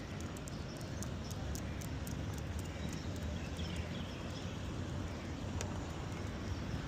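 Footsteps on pavement during a walk, with scattered light clicks, over a steady low rumble of street noise.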